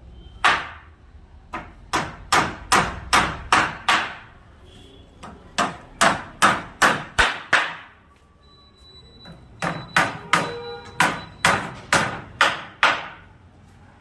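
Hammer blows in door-making woodwork: quick runs of sharp strikes, about two to three a second, with short pauses between the runs.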